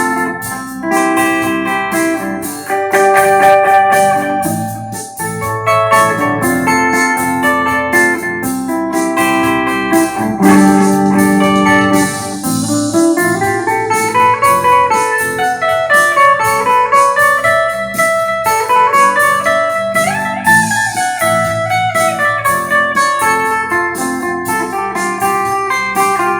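Electric guitar played through a clean, undistorted tone: a run of plucked chords and single notes, with notes sliding up and down in pitch in the middle stretch.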